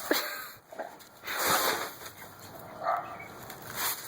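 Yellow Labrador playing in snow: a few short noisy bursts of its movement in the snow, the loudest about a second and a half in.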